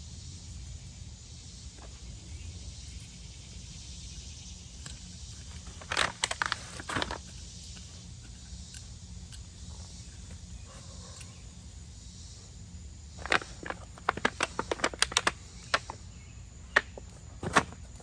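Garden soil being worked, giving short crunching and scraping sounds in bursts: a cluster about six seconds in, then a longer run of quick strokes from about thirteen to sixteen seconds. A steady low rumble runs underneath.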